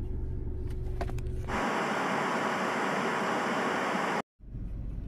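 Low, steady car-cabin rumble, which about a second and a half in gives way to a TV-static hiss sound effect lasting over two seconds. The hiss cuts off suddenly into a moment of silence, and then the low cabin rumble comes back.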